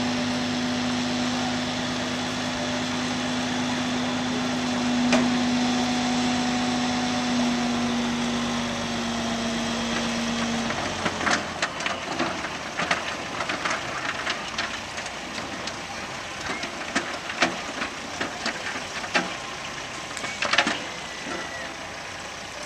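A semi truck's engine runs with a steady hum while its end-dump trailer is raised, and the hum cuts off about ten seconds in. After that, coal clatters and knocks as lumps slide and drop out of the tipped trailer, in an irregular string of sharp knocks.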